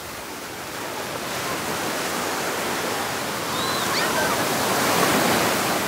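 Surf washing onto the beach, the wave noise swelling to its loudest about five seconds in, with faint shouts of people mixed in.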